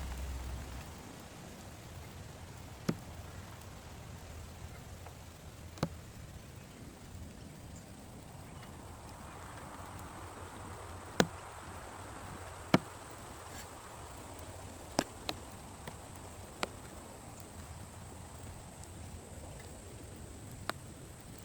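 Steady light rain hiss with a low rumble fading out in the first second, and about eight sharp single drip taps scattered a few seconds apart, large drops striking a plastic tarp.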